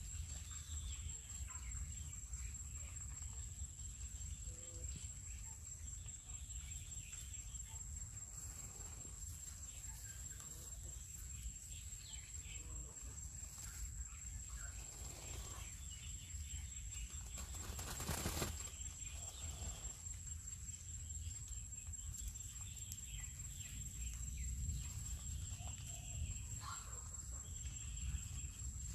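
Muscovy ducks shaking and ruffling their wet feathers after bathing: soft feather rustling, with one brief louder flurry about two-thirds of the way through. Under it runs a steady low rumble and a steady high-pitched whine.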